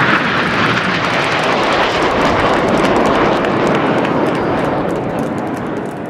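Aircraft engine noise, a loud steady rush that fades out near the end.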